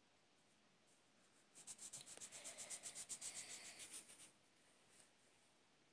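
Felt-tip marker scribbling back and forth on paper in quick, even strokes, about five a second. It starts about a second and a half in and stops a few seconds later.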